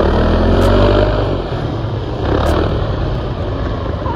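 Snowmobile engine running under throttle while the sled is drifted through snow, easing off slightly about a second in.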